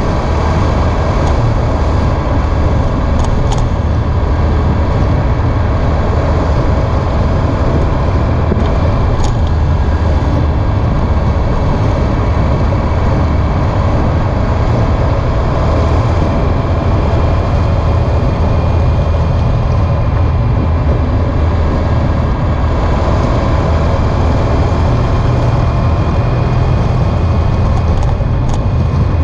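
Honda ST1300 Pan European motorcycle riding at a steady speed: its V4 engine running evenly under a constant low rumble of wind and road noise, picked up at the rear of the bike.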